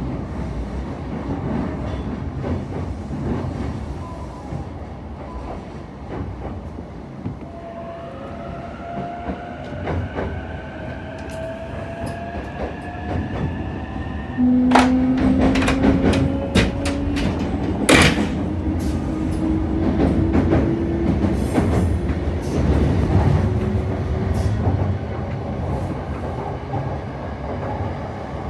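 Yamanote Line electric commuter train running, heard from inside the passenger car: a steady rumble with clicks from the rails and a slowly rising whine. About halfway through it gets suddenly louder with a stronger rising tone and a run of sharp clicks.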